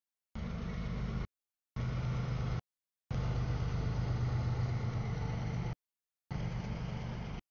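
CSX freight train rolling past: a steady low diesel locomotive drone over the rumble of the passing cars. The sound cuts out to total silence several times, for about half a second each.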